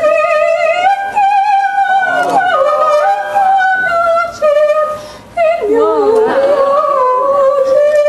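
A high solo voice singing opera-style, holding long notes with a wide vibrato, with a short break for breath a little past five seconds in.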